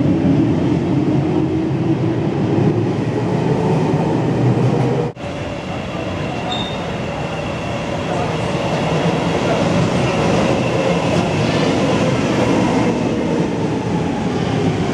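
Helsinki Metro trains in an underground station. A train rumbles along the platform, then a second train approaches and pulls in, its sound growing louder as it nears.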